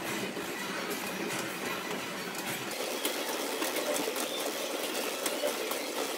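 Stair-climber (stepmill) running under a climber: its rotating steps make a steady mechanical rattle with fine, rapid clicking.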